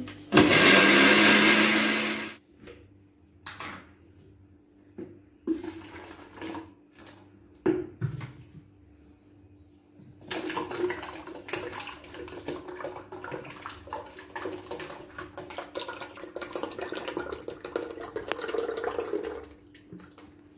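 Countertop blender running for about two seconds, blending oats for carrot and oats punch, then switched off. After a few knocks and clinks of handling, liquid is poured steadily into a plastic pitcher for about nine seconds.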